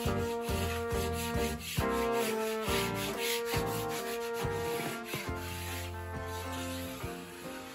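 Hand sanding block rubbed back and forth along the cut edge of a gypsum board, taking a chamfer off its back corner, with background music playing over it.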